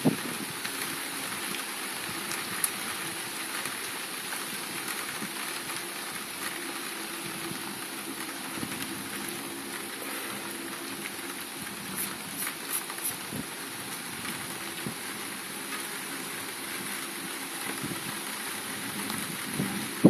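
Steady rain falling during a thunderstorm, an even continuous patter with no thunder.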